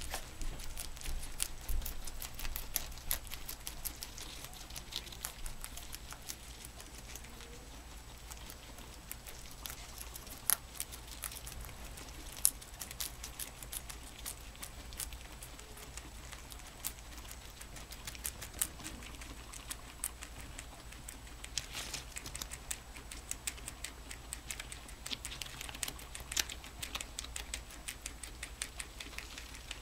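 Two guinea pigs chewing leafy greens: fast, irregular crunching clicks of their teeth biting and munching the leaves.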